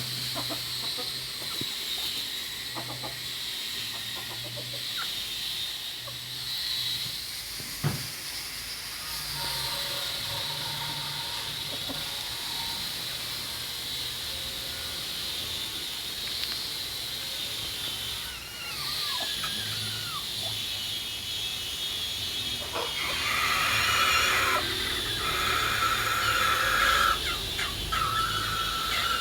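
Chickens clucking and calling while they feed, over a steady high hiss; a sharp tap about eight seconds in, and louder, longer calls in the last few seconds.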